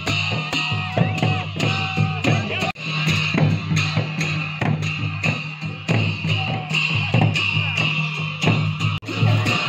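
Music with a steady beat and a sustained low bass line; the sound cuts out briefly twice, about a third of the way in and near the end.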